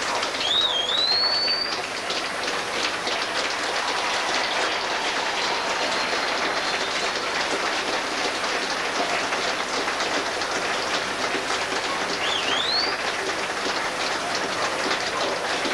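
Audience applauding: a steady, dense clapping. A high rising whistle-like sound cuts through it twice, near the start and again about three-quarters of the way in.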